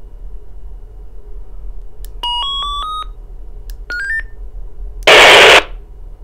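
Handheld walkie-talkie beeps: a rising four-note tone sequence, then a quicker three-note rising chirp. About five seconds in comes a loud half-second burst of radio static hiss.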